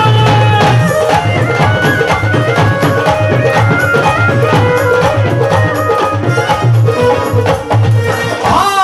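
Live devotional bhajan band playing an instrumental interlude: keyboard melody over a steady dholak and drum rhythm with a heavy bass beat. A brief swooping sound comes near the end.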